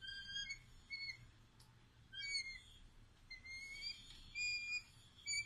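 A young southern crested caracara giving a series of short, high, thin begging calls, roughly one a second, while being hand-fed.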